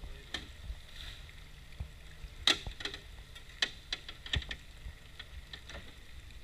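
Irregular sharp knocks and clicks, the loudest about two and a half seconds in, over a steady low rumble.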